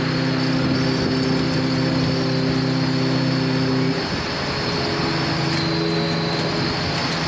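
Seikan ferry steam whistles in a farewell exchange of long blasts. A chord-like blast stops suddenly about four seconds in, and a second blast at a different pitch follows about a second later and runs to near the end, over a steady rushing noise.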